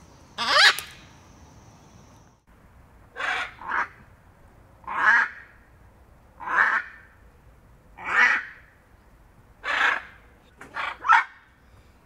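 Macaw squawking: harsh, raucous calls, one loud squawk about half a second in, then after a short pause a run of squawks about every second and a half, some doubled.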